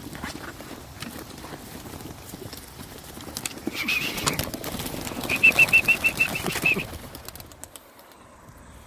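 Racing pigeons in a crate stirring and fluttering, then a loud clatter of many wings as the flock is released and takes off. A rapid run of high squeaks sounds over the wingbeats in the middle. It fades to quiet near the end.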